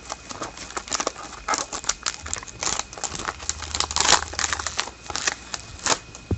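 The wrapper of an Upper Deck SPx hockey card pack crinkling as it is opened and handled, in a string of short, irregular crackles.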